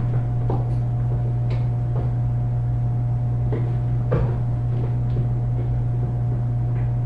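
Scattered light clicks and knocks as pliers and the plastic wash-arm clip and parts are handled inside a dishwasher, the strongest about four seconds in, over a steady low hum.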